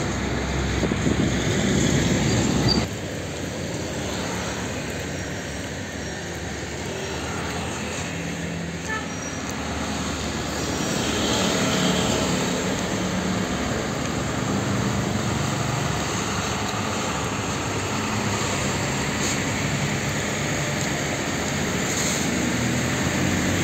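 Diesel trucks running in street traffic. A tank-container truck pulls away, then the sound changes abruptly to a Hino 500 bulk tanker's diesel engine as it turns and approaches, with motorcycles passing close by.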